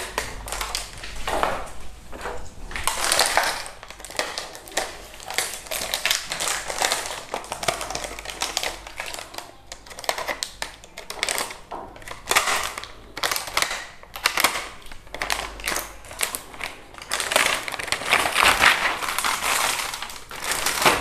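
Polythene wrapping crinkling and rustling irregularly as a ceiling fan blade is pulled out of it.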